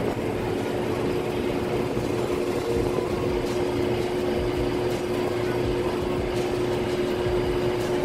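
Economizer damper actuator motor humming with a steady tone as it drives the outside-air damper open during a checkout test, over the steady rumble of the rooftop HVAC unit. A few faint ticks come through in the second half.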